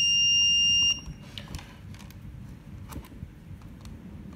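Electronic buzzer on an electronics training board sounding one continuous high tone, set off by the thermistor sensing a drop in temperature; it cuts off suddenly about a second in. Faint clicks of patch leads being handled follow.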